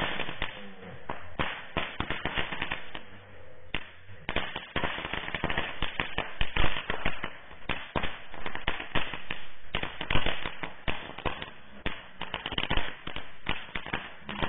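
Handheld 'lollipop' firecracker on a stick, crackling with a rapid, continuous run of small sharp pops as it throws sparks. There is a brief lull about four seconds in.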